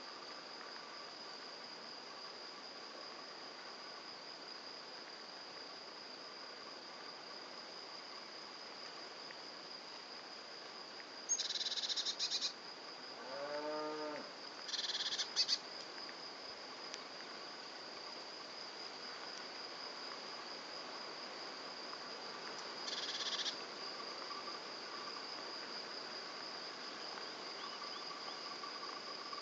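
Steady high-pitched insect chorus trilling continuously. There are three louder, closer bursts of the same high trill, and a brief low call that rises and falls in pitch midway.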